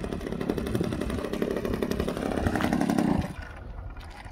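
Radio-controlled aerobatic airplane's engine running as the plane taxis, a rapid pulsing buzz, then cutting off about three seconds in.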